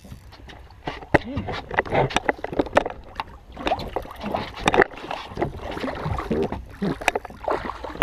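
Water splashing and sloshing as a hooked redfish thrashes at the surface and is scooped into a long-handled landing net. Irregular splashes start about a second in and go on in quick, uneven bursts.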